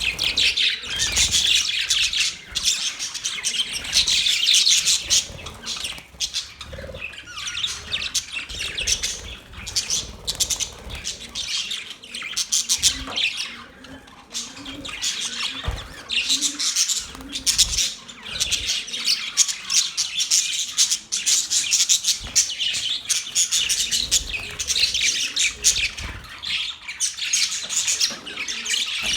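A group of budgerigars chattering, with rapid squawky chirps and warbles that keep on throughout and thin out for a while in the middle.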